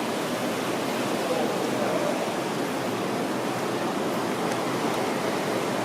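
Steady rushing and bubbling of water from hot tub jets, with a faint murmur of voices.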